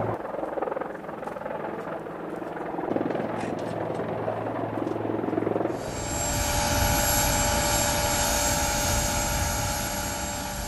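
Helicopter turbine engine running: a steady whine with several high, steady tones. It grows louder and fuller about six seconds in, then eases slightly near the end.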